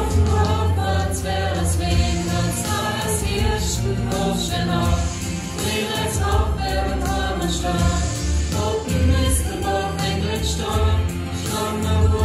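Mixed choir of young men and women singing a song together, with a steady deep bass line underneath.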